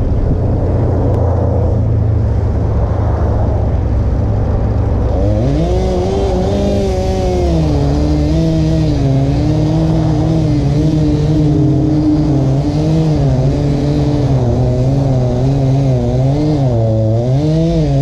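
A low steady rumble, then about five seconds in a two-stroke chainsaw starts cutting into a tree trunk. Its engine pitch sags and recovers again and again under load, and it revs up near the end.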